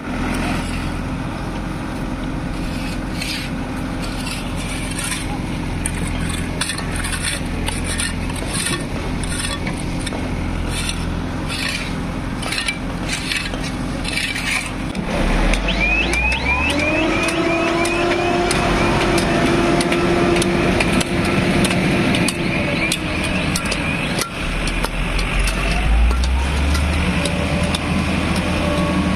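Diesel engines of earthmoving loaders working in snow: a steady engine hum with scattered clanks and knocks, then about halfway an engine revs up with a rising whine and a quick run of high squeaks. Near the end it revs up again.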